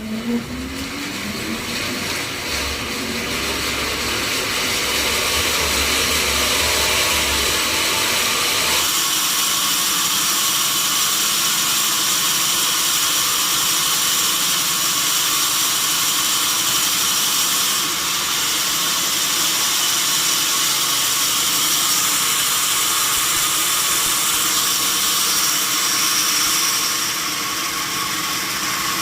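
Sawmill saw speeding up with a rising whine, then from about nine seconds in a steady loud hiss and high whine as it cuts through a mahogany log.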